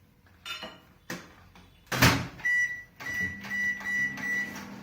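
A microwave oven door knocks shut about two seconds in, followed by a run of short high keypad beeps, one and then about five more, as the cooking time is set. A steady low hum starts about three seconds in as the oven begins running.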